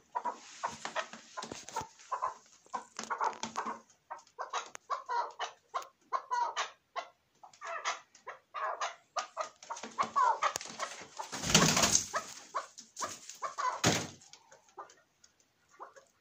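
A caged chukar partridge calling, a long run of short, rapid clucking notes repeated several times a second. About three-quarters of the way through there is a loud, noisy scrape or knock.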